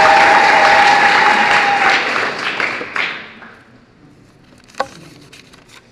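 Audience applause with a long held high tone over it for the first two seconds. The clapping fades out about three seconds in, leaving a few scattered claps and one sharp knock near the end.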